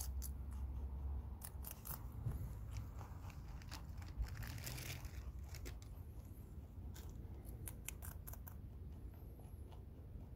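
A lop-eared rabbit biting and chewing basil stems: irregular sharp crunches that come in short runs.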